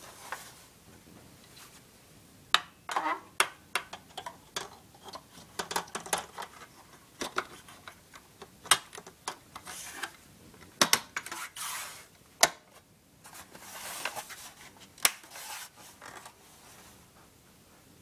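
Glow starter of a fluorescent fixture clicking irregularly, many sharp clicks in uneven clusters, as it repeatedly tries to strike the F15T8 15 W tube. This is the sign of a bad, slow starter.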